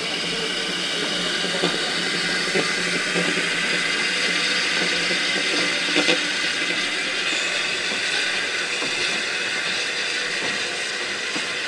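Narrow-gauge steam tank locomotive Lyd pulling away slowly with its coaches: a steady steam hiss with a few metallic knocks from the running gear and wheels on the track, the loudest about six seconds in.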